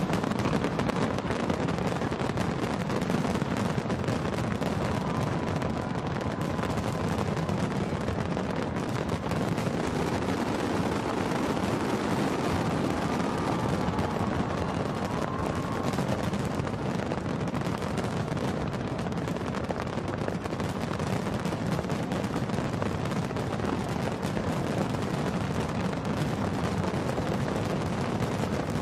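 Aerial fireworks barrage: a dense, unbroken run of shell bursts and crackling reports, many bangs a second overlapping, with no pause.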